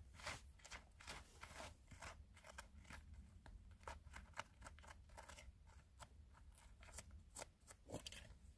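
Small metal hand pick scratching and prying at hard-packed dirt and gravel in a bedrock crack: quiet, irregular scrapes and clicks, several a second.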